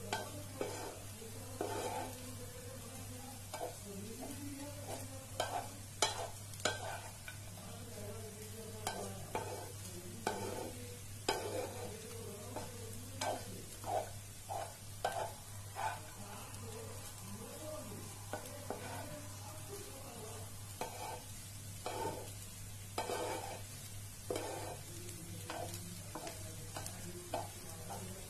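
A spatula stirring and mixing flattened-rice (poha) pulao in a nonstick frying pan, with irregular scrapes and taps against the pan as the food fries and sizzles. A steady low hum runs underneath.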